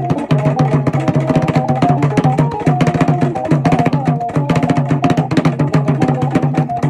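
Music with hand drumming: rapid, dense drum strokes over a repeating melody line.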